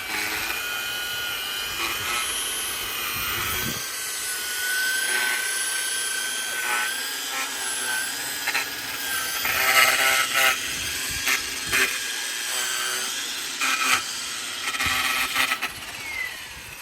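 String trimmer running with a steady whine as its line cuts along a concrete edge, with scattered snaps and clicks from the line striking. Near the end it is switched off and the whine falls away as the head spins down.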